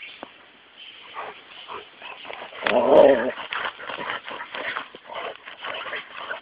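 Dogs sniffing and snuffling in short noisy puffs with their noses in the dirt at a rhino beetle. A louder half-second sound comes about three seconds in.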